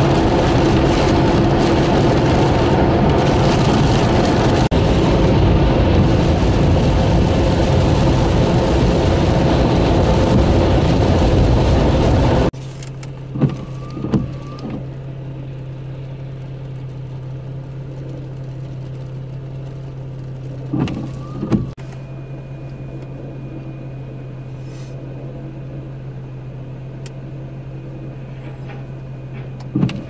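Car driving on a wet, slushy highway in heavy snow, heard from inside the car: a loud, even rush of tyre spray and road noise. About twelve seconds in it cuts suddenly to a much quieter steady hum of the car with its engine running. Short paired sweeps of the windshield wipers come a few times.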